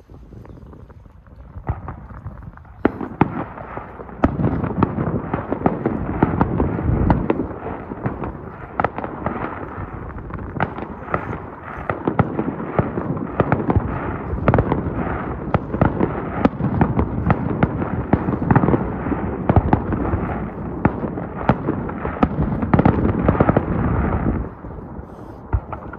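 Aerial fireworks bursting in quick succession: many overlapping bangs and crackles that start about two seconds in, grow dense a couple of seconds later, and drop away sharply shortly before the end.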